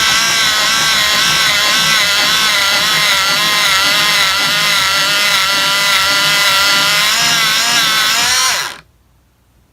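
Electric pencil sharpener running as it grinds a wooden pencil to a point, the motor's whine wavering in pitch under the load. It stops near the end, the motor winding down briefly.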